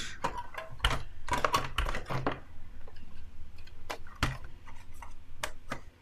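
Clicks and knocks of a robot vacuum cleaner's hard plastic body being handled and turned over on a wooden desk: a quick run of sharp taps in the first half, then a few scattered ones.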